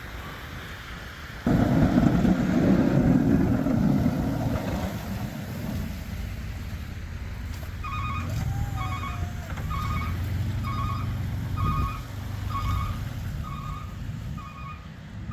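A sudden loud low rumble about a second and a half in, easing after a few seconds into a steady vehicle engine hum. From about halfway through, a backup alarm beeps steadily about twice a second, as a plow truck reverses.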